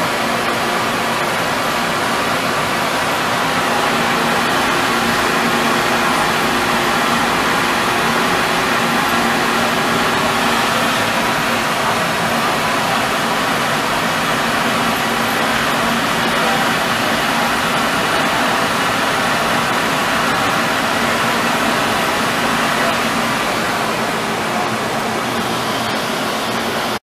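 Steady whirring and humming of a powered-up CNC drill and tap center, with a faint low hum underneath. It cuts off abruptly near the end.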